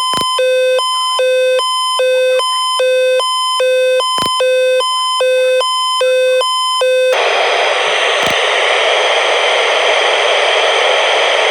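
Electronic alarm alternating between a low and a high buzzy tone about twice a second. About seven seconds in it switches abruptly to a loud steady hiss of static.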